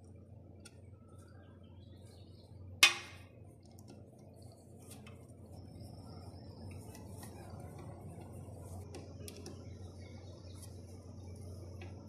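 A hand tool working the caliper cap on a motorcycle's rear disc brake. One sharp metallic clink comes about three seconds in, then faint scattered clicks of the tool on the metal over a low steady hum.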